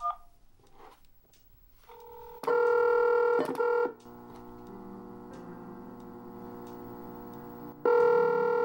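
Telephone ringback tone heard through a cordless phone's speaker: two rings about four seconds apart, the far-end line ringing after the number is dialled, with a fainter steady tone between them.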